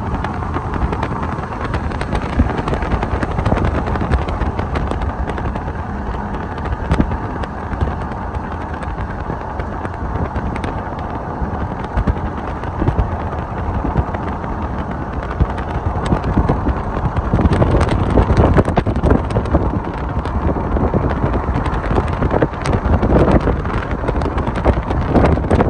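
Freight train of open-top hopper cars rolling past close by: a steady rumble of steel wheels on the rails with frequent sharp clacks, getting louder over the last several seconds.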